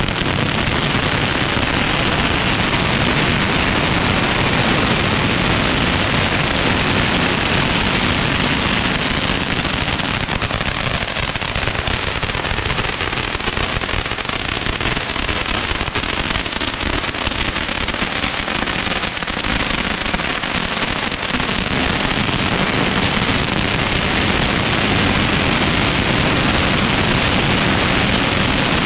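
Long strings of firecrackers going off in a loud, continuous rapid crackle, a dense unbroken stream of small bangs that eases slightly about two-thirds of the way through.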